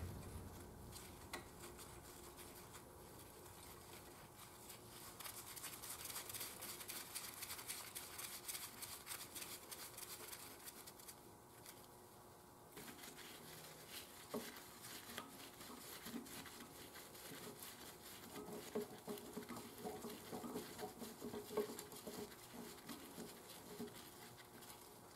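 Rubber-gloved hands handling the parts on the side of an old stationary engine, a faint rubbing and rustling at first, then soft clicks and light knocks that grow busier in the second half.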